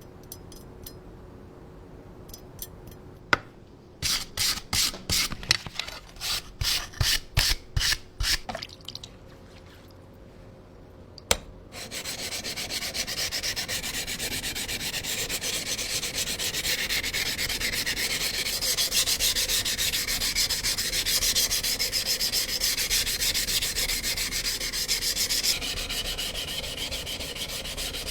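A blade being sharpened by hand, rubbing on an abrasive surface. First come about a dozen separate strokes, roughly two a second. Then, from about twelve seconds in, there is steady, fast back-and-forth scraping.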